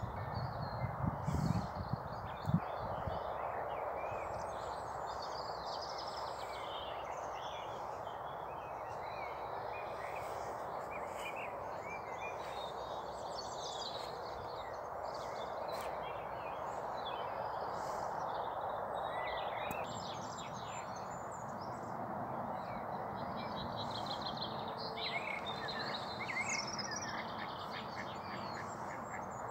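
Songbirds chirping and singing on and off throughout, over a steady outdoor background noise. There are a few soft low knocks in the first couple of seconds.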